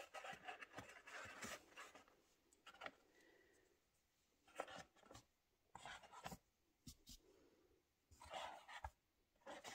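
Faint, intermittent scraping and light clicks of chicken eggs being handled and set into a cardboard egg carton, shells rubbing against each other and the cardboard, with short quiet gaps between.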